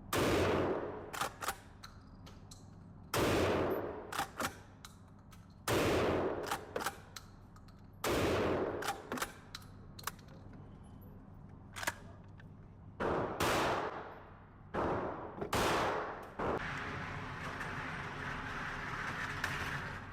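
Gunshots at a shooting range: about six loud shots a few seconds apart, each ringing on briefly, with quieter shots from other firearms in between.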